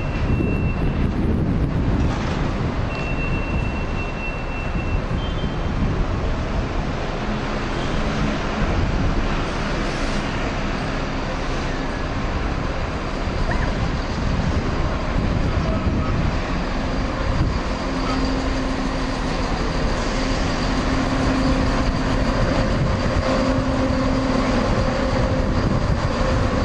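Class 170 Turbostar diesel multiple unit 170631 running into a station and drawing to a stand, with a steady rumble from its diesel engines and wheels. From about eighteen seconds in, a steady low hum remains as it stands at the platform with its engines idling.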